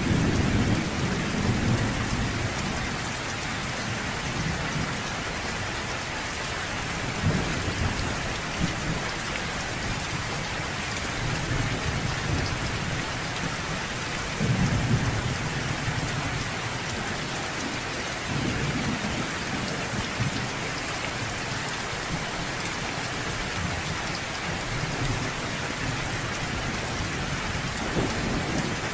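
Steady rain falling on surfaces, with low rolls of thunder rumbling in and out every few seconds, the strongest about fifteen seconds in.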